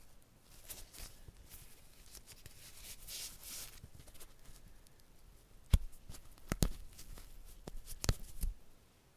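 A small clip being handled, with light scraping and rustling followed by several sharp clicks from the clip snapping. The loudest click comes a little under six seconds in.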